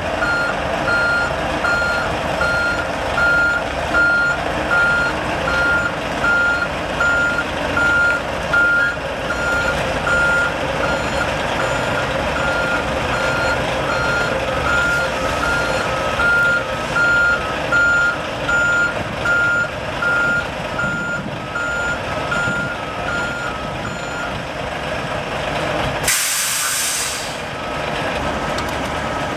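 A prime mover's reversing alarm beeps steadily about once a second over its running diesel engine. Near the end comes a short, loud hiss of air, and then the beeping resumes at a slightly lower pitch.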